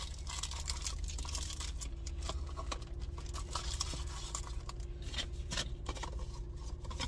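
A cardboard glasses box and its paper inserts being handled and folded back together: rustling and crinkling with many small clicks and scrapes, over a low steady hum.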